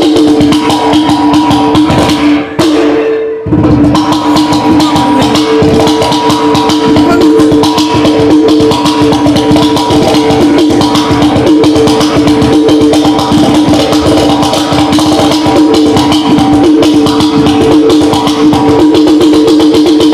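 Mizhavu, the large pot drum of Chakyar Koothu, played with bare hands in fast, continuous strokes over a steady droning tone. The sound briefly drops out about three seconds in.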